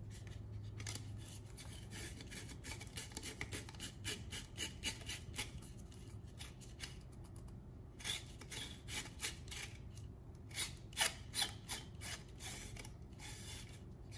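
An LED bulb's threaded metal base being screwed by hand into a plastic lamp socket: a run of short scraping, rubbing strokes, sharper and stronger in the second half.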